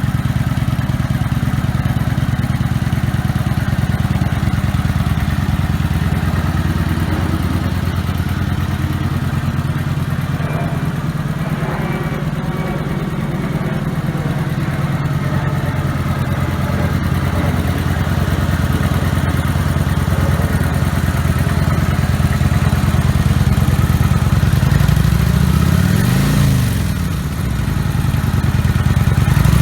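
Kawasaki Vulcan 900's V-twin running through its stock exhaust, idling steadily with a muted, lawnmower-like tone. Near the end the throttle is blipped once, the revs rising and falling back to idle.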